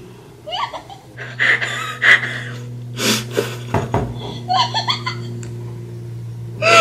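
A young woman laughing in short giggling bursts, partly muffled behind the hand held to her mouth.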